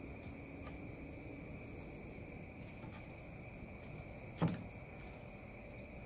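Steady chorus of crickets trilling, with a single sharp knock about four and a half seconds in.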